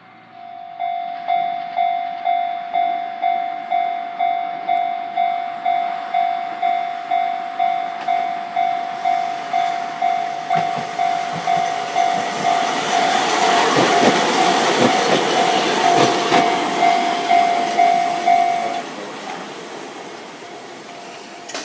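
Japanese railway level-crossing alarm ringing in steady electronic dings, about one and a half to two a second, then stopping near the end. A Chikuho Electric Railway train passes during it, its running noise swelling to be loudest around the middle and fading after.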